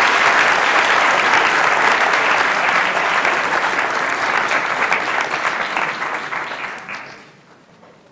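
Audience applauding in a hall: dense clapping that thins out and stops about seven seconds in.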